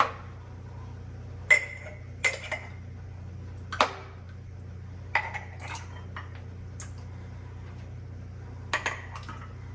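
A metal scoop clinking and scraping in a heavy enamelled pot while ladling thick apple pie filling into a glass canning jar: scattered sharp clinks every second or so, some ringing briefly, over a steady low hum.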